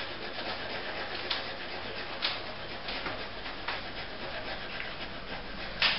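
Red coloured pencil shading rapidly back and forth on paper: a steady scratchy rubbing with a few sharper strokes standing out.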